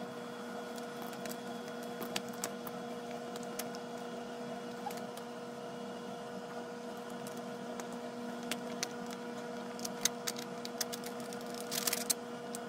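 Steady mechanical hum with a few fixed pitches, over scattered light clicks and taps that come thicker near the end.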